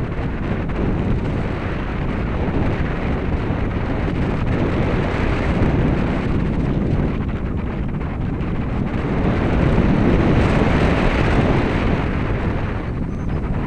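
Wind noise from air rushing over the microphone of a camera mounted on a radio-controlled Radian glider in flight: a loud, low, even rush that swells about ten seconds in.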